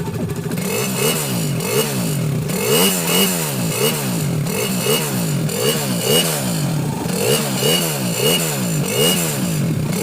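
Suzuki Raider 150 carb's single-cylinder four-stroke engine revved in repeated quick throttle blips, its pitch rising and falling over and over, through the stock exhaust pipe with the catalytic converter removed.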